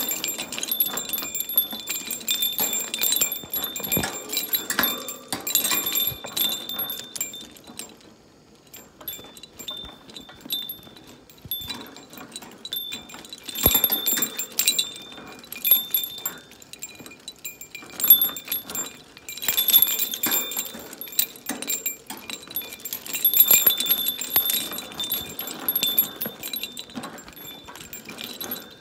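A pet bird playing with a hanging cage toy, making its metal parts jingle and ring in repeated bursts, with clicking rattles from the toy's beads and plastic pieces. The sound goes quiet about eight seconds in, then the jingling picks up again.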